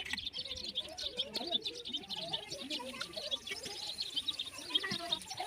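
Many small birds chirping together in a dense, continuous chorus of quick high chirps.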